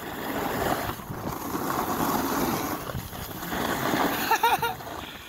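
Snowboard sliding and scraping over packed snow, a continuous rushing hiss that swells and eases as the rider carves, mixed with wind buffeting the microphone.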